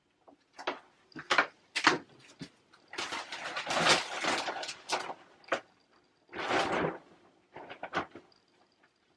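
Plastic sheeting rustling and crinkling as it is pulled over a tub of crushed grapes and smoothed down, in irregular bursts with a few sharper clicks, busiest in the middle.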